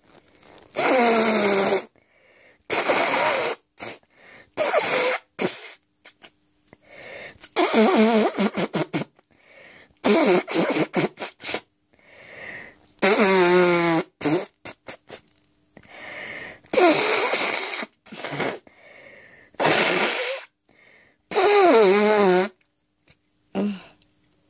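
A person blowing their nose hard into a tissue, about eight long blows of roughly a second each, several with a honking tone that wavers in pitch, and some broken up into quick short puffs.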